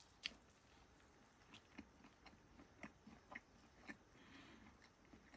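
Faint chewing of a piece of mushroom tempura: soft mouth clicks, about two a second. The tempura is soft and fluffy, not crunchy.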